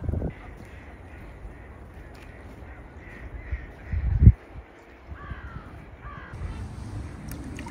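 Crows cawing faintly, a few scattered calls over a low steady rumble. A brief low thump about four seconds in is the loudest sound.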